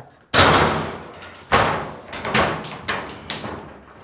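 Sheet-metal doors of a UPS battery cabinet being pushed shut: a loud bang about a third of a second in, followed by several smaller knocks and rattles that each fade away.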